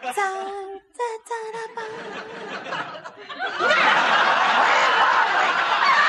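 A voice for the first few seconds, then a TV studio audience starts laughing about three and a half seconds in and keeps laughing.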